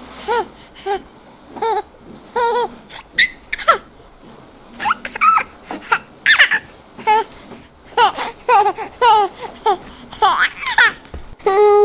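A baby laughing and babbling: many short, high-pitched giggles and coos in quick succession.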